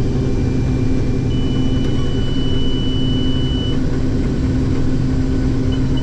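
Case IH 2144 combine running steadily under harvest load, a constant low machine hum. In the middle a high, thin steady tone sounds for about two seconds, and short high beeps begin near the end.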